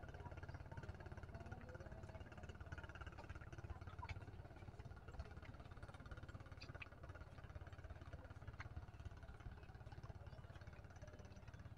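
Klotok river boat's engine running steadily, a low rapid chugging.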